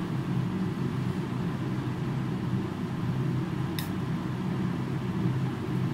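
Steady low mechanical hum of room equipment, with a single sharp click about four seconds in.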